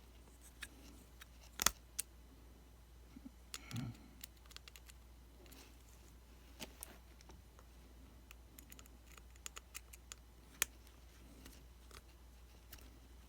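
Scattered small clicks and taps of a screwdriver working at a tiny screw in an iPhone 5C; the tip is too large for the screw and keeps slipping on its head.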